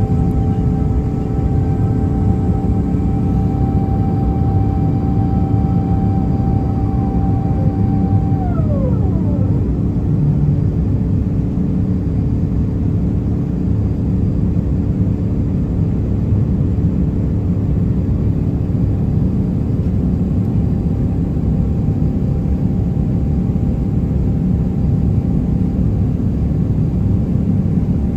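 Airliner cabin noise during the climb after takeoff: a loud, steady deep rumble from the Airbus A350-900's Rolls-Royce Trent XWB engines and the airflow, with a steady whine riding on it. About eight or nine seconds in, the whine drops sharply in pitch, as the engines are throttled back from takeoff to climb thrust.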